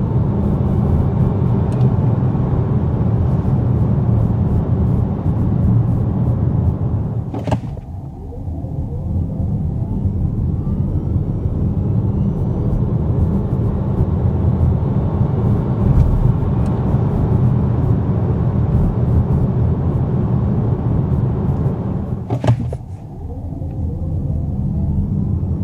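Renault Scenic E-Tech electric car heard from inside the cabin while driving: a steady low rumble of road and tyre noise. Twice, about a third of the way in and again near the end, a brief sharp sound and a short drop in level come before a faint electric-motor whine that rises in pitch as the car speeds up.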